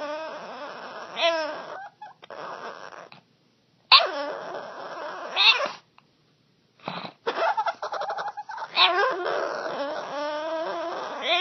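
A dog making strange drawn-out vocal noises: several wavering calls that slide up and down in pitch, each lasting a second or two, with short pauses between, running on unbroken through the second half.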